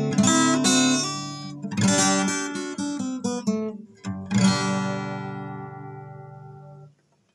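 Acoustic guitar strumming chords, ending on a last chord about four seconds in that rings out and fades away.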